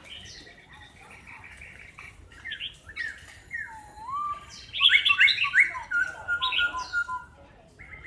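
Caged laughingthrush singing: a string of clear whistled notes that swoop up and down, loudest about halfway through, then a quick run of repeated notes.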